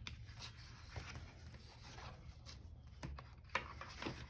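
Faint rustling and a few light taps and clicks from handling paper sticker sheets and planner pages, over a low steady room hum.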